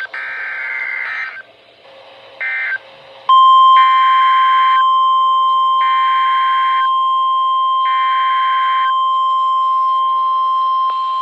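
NOAA Weather Radio emergency alert: bursts of shrill two-pitch SAME header data tones, then about three seconds in the loud, steady 1050 Hz warning alarm tone starts and holds, with three more data bursts sounding over it. The tone marks a new warning being issued.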